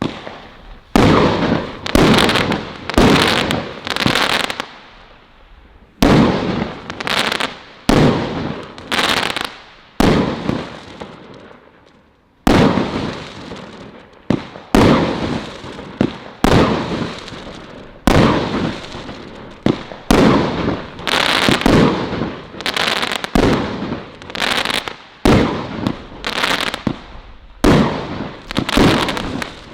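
Celtic Fireworks Colour Crackles 25-shot, 25mm firework cake firing, about one shot a second, each launch followed by crackling stars that die away. There are short pauses between volleys, near five seconds in and again near eleven seconds.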